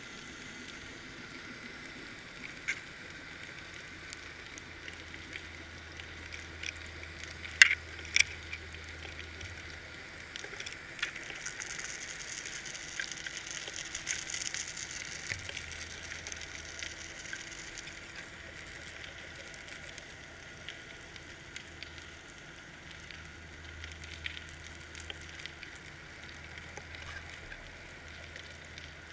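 Muffled underwater noise heard through a GoPro's waterproof housing on a fishing line: a steady hiss with light crackling, two sharp knocks about eight seconds in, and a louder, brighter rushing hiss for several seconds in the middle.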